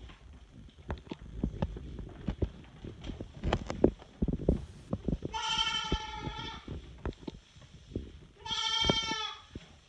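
Week-old Boer goat kids bleating twice, the first call a little over a second long, the second about a second, amid scattered clicks and knocks of small hooves on leather recliners and a wooden console.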